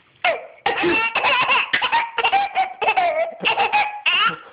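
Young child laughing at a sneeze in a long run of short, quick bursts of giggling.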